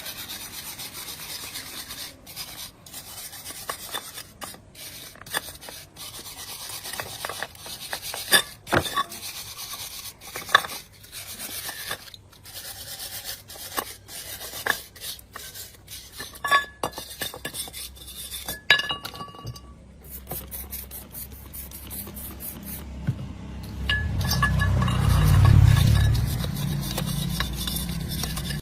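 Scraping and rubbing on metal with scattered clinks and sharp knocks, as of hand work on machine parts. A low rumble swells up about 24 seconds in and fades before the end.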